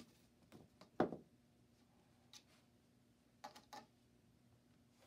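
A few light knocks and clicks from a plastic hoop that a dog is handling bumping against a plastic traffic cone and the floor, with one louder thud about a second in.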